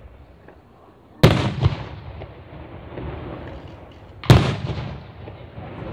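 Aerial fireworks bursting in the sky: two loud bangs about three seconds apart, each dying away in a rumble over about half a second, with faint crackling between them.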